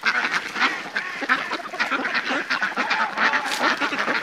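A flock of domestic ducks quacking as they feed, many short calls overlapping one another.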